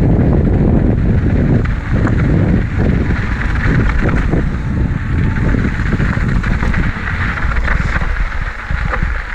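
Ibis Mojo HD4 mountain bike being ridden on a dirt trail: wind buffeting the microphone over tyre noise, with many small clicks and rattles from the bike over rough ground. It eases off a little near the end.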